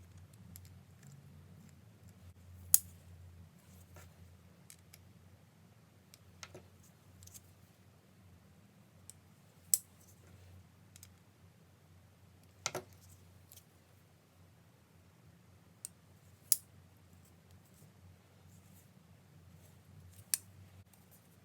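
Sharp clicks and light taps from handling a Spyderco Delica 4 folding knife and small tools during cleaning, about five louder clicks a few seconds apart among fainter ticks, over a low steady hum.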